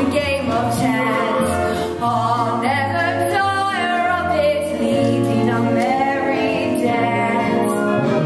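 A woman singing a show tune with long held notes over instrumental accompaniment, its low bass notes changing about once a second.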